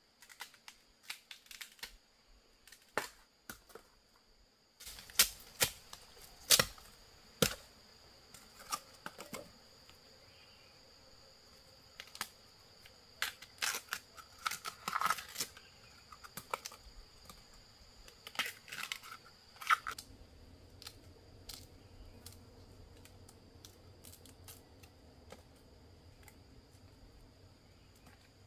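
Sharp clicks and knocks in irregular clusters, thickest between about five and twenty seconds in, over a steady high-pitched insect drone; a low hum comes in near the end.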